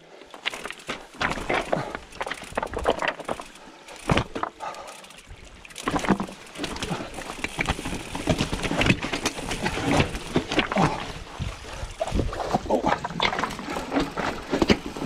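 Mountain bike ridden over rough ground: tyre noise with frequent rattles and knocks from the bike, quieter at first and busier from about six seconds in.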